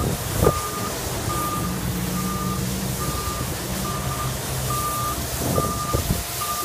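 A vehicle's reversing alarm beeping steadily, one high beep a little faster than once a second, over the low hum of an engine.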